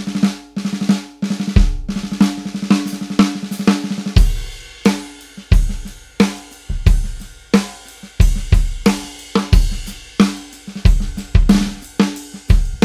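A drum kit played in a groove on a chrome vintage snare drum, with bass drum, hi-hat and cymbals. The snare strokes ring and buzz through the snare wires. A busy snare pattern gives way, about four seconds in, to a sparser beat with regular kick-drum hits.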